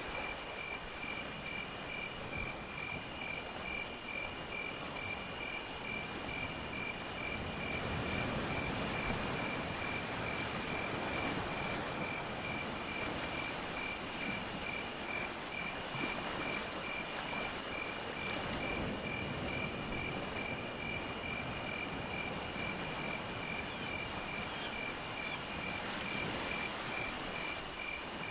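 Insect chorus: a cricket chirping steadily about five times a second, with a much higher insect song in pulses about a second long and short gaps between them. Underneath is a low background rumble that swells in the middle.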